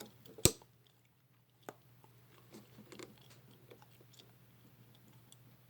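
Clicks and handling noise from working a multimeter and its test leads while it is set high on the ohms range: one sharp click about half a second in, a softer one a second later, then faint scattered clicks over a low steady hum.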